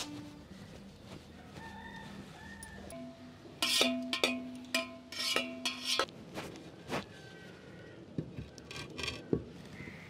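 Cooking vessels knocking and clinking as they are handled, a run of light knocks near the end. Midway a loud held sound with several steady tones and sharp strokes over it stands out for about three seconds.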